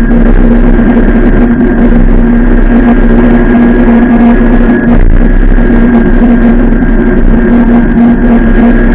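Zero S electric motorcycle's motor giving a steady whine at constant pitch while riding, over loud wind and road noise.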